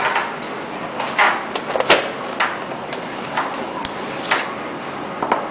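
Screws being driven back into a DVD drive's sheet-metal bottom cover: irregular light metallic clicks and short scrapes.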